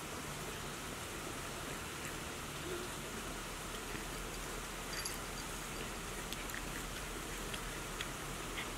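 A few faint crunching ticks of cats chewing horsetail stems, over a steady even hiss of outdoor background noise.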